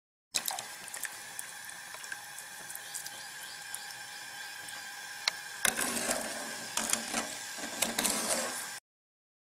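Metal ladle stirring and scooping a thin liquid in an aluminium karahi: the ladle clicks against the pan and the liquid splashes and pours back in, louder and fuller from about six seconds in. A faint steady whine sits underneath. The sound starts abruptly just after the start and cuts off abruptly near the end.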